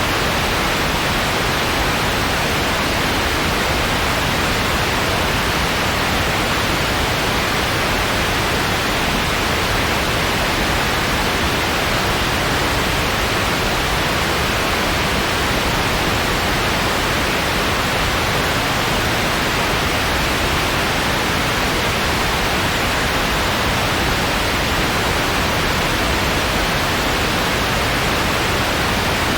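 Steady white noise, an even hiss that does not change.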